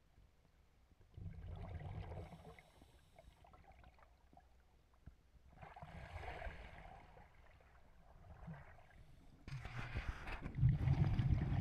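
Scuba divers breathing through regulators underwater: three bursts of bubbling exhalation about four seconds apart, with a low rumble. The last burst, starting near the end, is the loudest.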